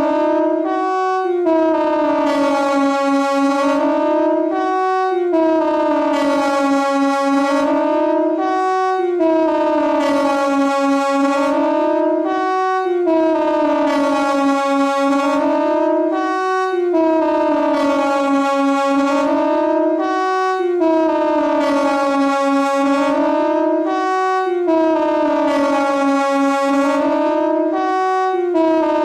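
Siren sounding continuously, its pitch rising and falling in a steady repeating cycle every few seconds.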